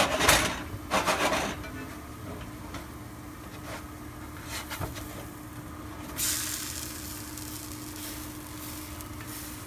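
A plastic spatula scrapes against a cast-iron skillet under biscuit dough frying in oil for the first second and a half, then the oil sizzles steadily. About six seconds in the sizzle gets louder as a biscuit is turned over onto its uncooked side.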